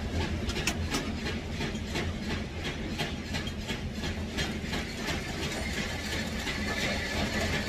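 Rapid, irregular mechanical clicking and clattering over a steady low hum, like machinery running.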